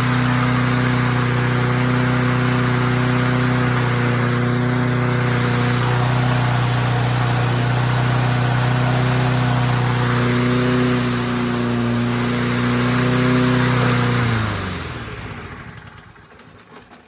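Toro Recycler 22-inch push mower engine running at a steady speed, freshly started after years unused once its spark plug cap was put back on. About fourteen seconds in it is shut off, and the pitch drops as it winds down to a stop.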